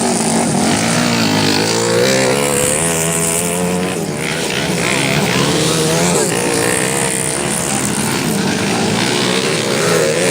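Several racing motorcycle engines running hard on a dirt track, their pitches overlapping and repeatedly rising and falling as the riders rev up and shift.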